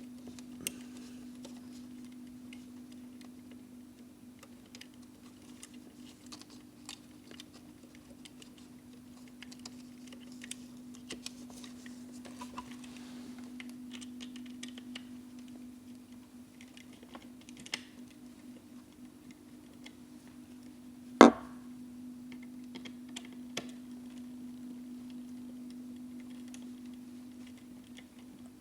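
Small scattered clicks and taps of hand tools and fingers working on a telephone socket's wire terminals, over a steady low hum. About three-quarters of the way through comes one loud, sharp knock with a short ring.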